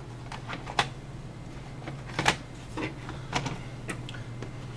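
Light clicks and taps of plastic and metal parts and tools being handled while a PS3 optical drive is taken apart, scattered irregularly, with a steady low hum underneath.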